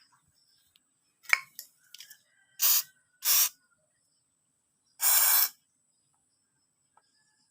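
Three short bursts of hissing spray, the last one the longest, from a sprayer used in cleaning the humidifier. A few sharp clicks come just before the first burst.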